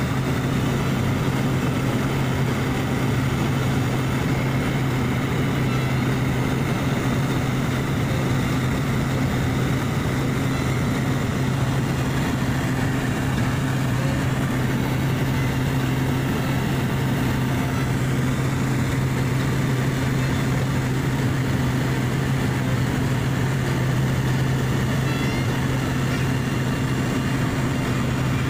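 Steady cabin drone of a small single-engine turboprop plane in cruise flight: engine and propeller giving an unchanging low hum over a wide rushing noise.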